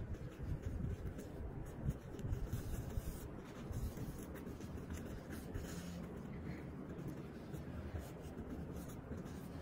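A necktie's fabric rustling and rubbing as hands pull and slide it through a Windsor knot, in irregular scratchy brushes.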